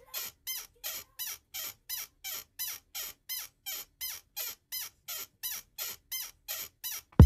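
Short, high squeaky chirps repeating at a steady beat, about three a second, like a metronome-timed sample; a loud electronic music beat cuts in right at the end.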